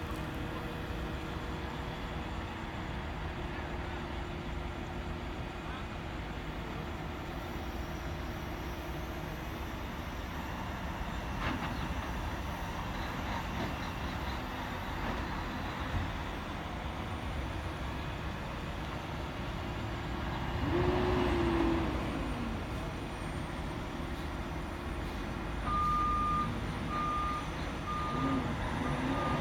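Heavy diesel engines running steadily, with a louder swell about two-thirds of the way through. A truck's reversing alarm beeps at an even pace in the last few seconds.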